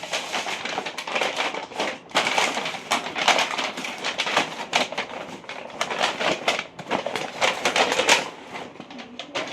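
Packaging of a boxed electric kettle being opened and handled: dense crackling and rustling with many sharp clicks. It pauses briefly about two seconds in and again near seven seconds, then grows quieter near the end.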